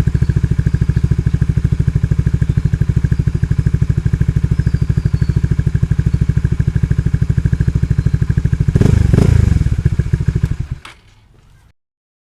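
Honda Supra GTR 150's single-cylinder engine idling through an aftermarket exhaust with a steady pulsing beat. About nine seconds in it gets a short blip of throttle, and then it is switched off.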